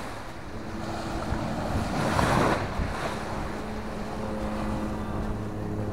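Wind buffeting the microphone over waves washing on the shore, swelling in a gust about two seconds in, with a faint steady low hum underneath.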